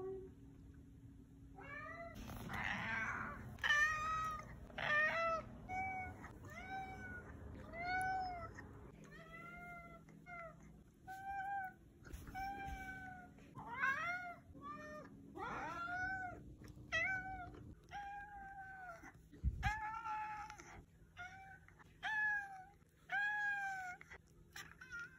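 Domestic tabby cat meowing over and over, about two dozen short meows starting about two seconds in, each rising and then falling in pitch.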